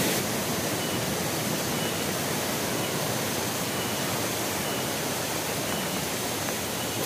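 Steady rush of flowing water from a small stream, an even hiss with no breaks.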